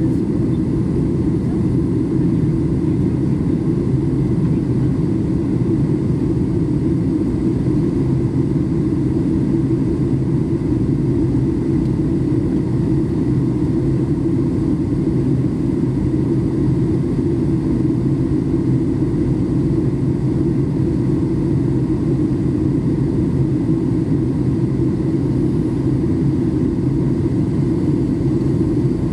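Steady low rumble in the passenger cabin of a Boeing 737 MAX 8, the noise of its CFM LEAP-1B engines heard from a window seat, even throughout.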